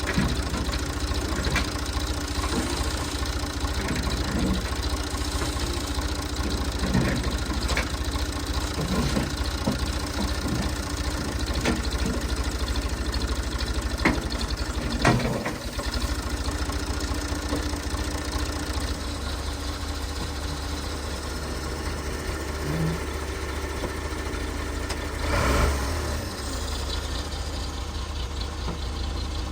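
Tractor engine running steadily, with a scattering of sharp knocks and clanks over it, the loudest about halfway through.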